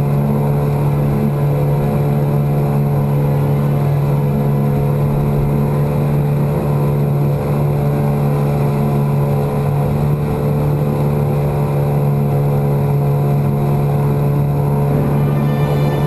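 Yamaha 9.9 hp two-stroke outboard kicker motor running steadily at wide open throttle, a constant low drone pushing the loaded boat along at about 5 mph.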